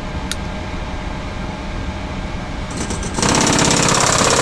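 Boeing 737 stick shaker starting up in a stall warning test: about three seconds in, the shaker motor on the control column sets off a loud, fast rattle. Before it, a steady cockpit hum and a single click.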